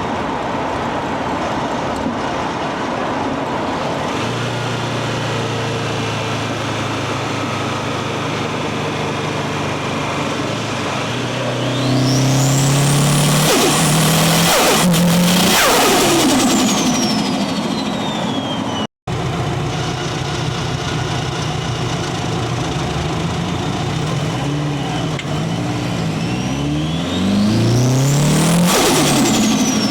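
Subaru WRX's turbocharged flat-four engine pulling hard up through the gears twice, the turbo's whistle climbing with boost and falling away as the throttle closes. With no blow-off valve and a narrowed 3-inch intake pipe, the released boost flutters back through the turbo on lift-off. The sound cuts out briefly partway through.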